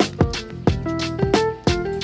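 Background music: a backing track with a steady drum beat and short melodic notes.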